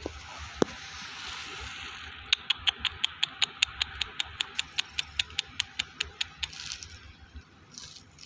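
A quick, very even run of sharp clicks, about five a second, starting about two seconds in and lasting about four seconds.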